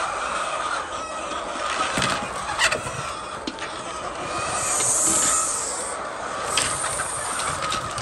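Chickens clucking, with scattered clicks and knocks and a high hiss about five seconds in.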